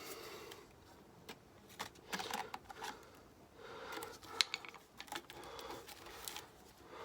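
Soft handling noise: scattered light clicks and knocks with some rustling, as tools and parts are picked up and moved about.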